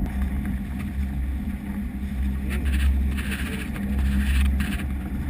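Catamaran boat under way: a steady low drone from its motor and wind on the microphone, with bursts of water hiss in the second half.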